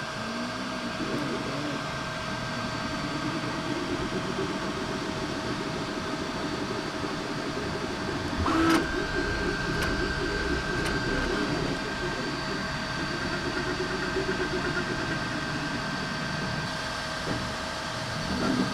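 Snapmaker J1 IDEX 3D printer running a print: a steady fan hum with constant high tones, under stepper-motor whine that rises and falls in pitch as the print head moves back and forth. A single click comes about nine seconds in.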